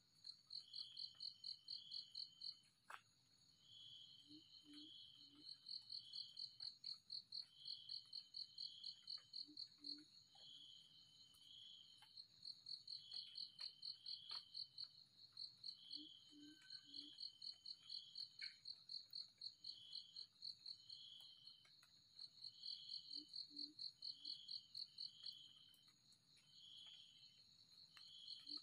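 Faint insect chorus: a high-pitched trill in rapid even pulses, coming in long runs with short gaps, over a second insect's rows of short chirps. A soft low three-note sound repeats about every six to seven seconds.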